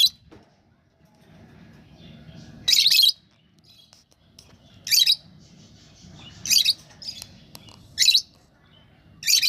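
Lovebirds giving loud, shrill chirps, five sharp calls spaced about a second and a half apart, with softer chatter between them.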